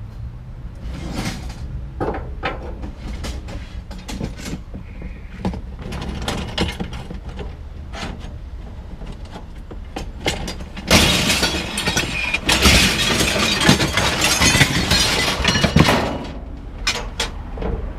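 Pieces of steel scrap clinking and knocking as they are handled and tossed. About eleven seconds in, many pieces clatter together for around five seconds, as when a bucket of scrap metal is tipped out.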